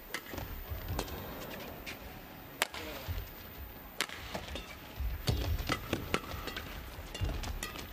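Badminton rally: sharp cracks of rackets striking the shuttlecock about once a second, with players' shoes squeaking and feet thudding on the court.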